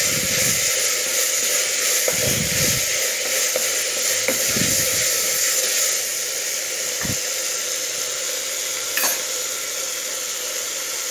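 Chopped brinjal, potato and tomato sizzling in hot oil in a clay pot while being stirred, with a few low scraping strokes of the spoon against the pot in the first several seconds. The hiss of frying stays steady and eases slightly about six seconds in.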